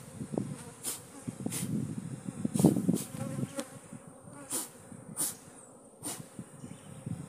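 Honeybees buzzing densely around an opened hive, an angry, defensive colony stirred up by the frame being pulled. The buzz swells loudest about two and a half seconds in.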